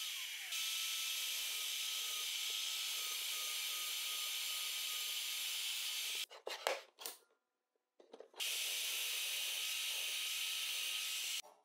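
Bench drill press running and boring holes into laminated plywood: a steady high hiss with a faint whine. It breaks off about halfway for a moment with a few clicks, then runs steadily again.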